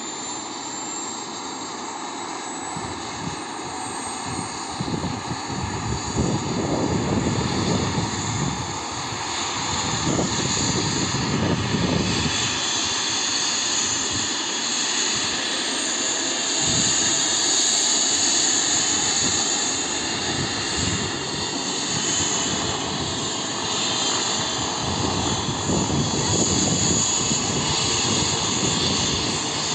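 Light turbine helicopter running on the ground with its main rotor turning: a steady high turbine whine over the rotor's noise, which grows louder over the first several seconds and then holds even.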